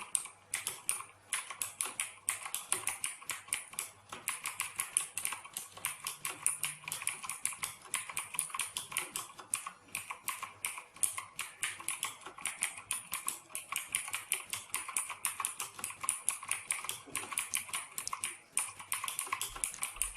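Continuous fast typing on a Marvo Scorpion KG909 mechanical keyboard with clicky Outemu Blue switches: a dense, unbroken run of sharp key clicks that starts and stops abruptly.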